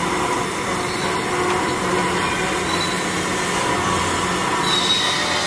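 VMC650 vertical machining center milling with an end mill under coolant spray: steady spindle and cutting noise with a few held tones, and a higher whine coming in near the end.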